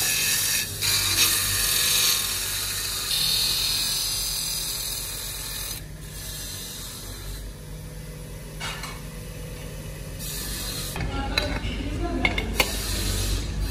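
A metal ceiling-fan cover pressed against a spinning, belt-driven polishing wheel makes a loud, high, rasping hiss that fades away after a few seconds, over the steady hum of the wheel's motor. Near the end, sharp metallic clinks come from metal fan parts being handled.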